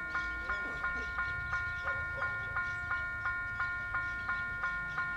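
Autotrol level-crossing bell ringing at an even, fast rate of about three strokes a second, each stroke a bright metallic clang that rings on into the next.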